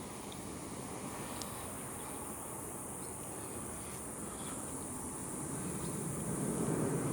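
Steady high-pitched chorus of insects in the woods, with a low rustling noise that grows louder near the end.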